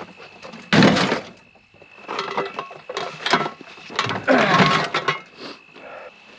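Pieces of scrap metal clanking and clattering as they are handled and dropped into a bucket, with a loud clank about a second in, then a run of irregular rattles and clinks.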